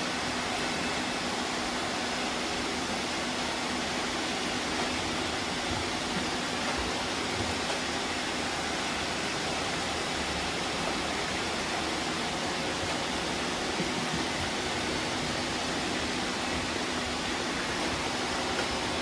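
Many robot vacuums running together: a steady, even rushing noise of their suction fans with a faint low hum that does not change.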